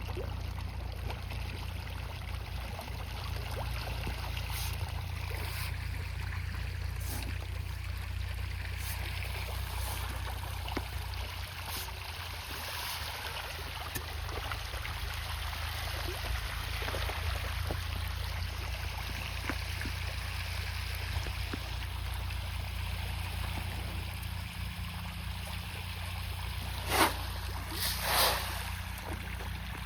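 Water running and trickling over a steady low hum, with scattered faint clicks and two louder knocks near the end.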